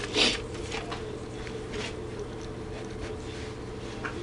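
A sheet of paper rustling briefly as it is picked up off a workbench, followed by a few faint knocks and shuffles, over a steady low hum.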